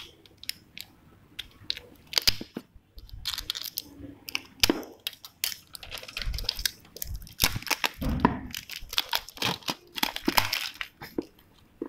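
Clear plastic shrink-wrap being picked at, peeled and torn off a sealed smartphone box, crinkling and crackling in irregular bursts.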